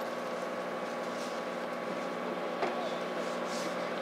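Steady mechanical drone made of several even tones, with faint voices and a single sharp click about two and a half seconds in.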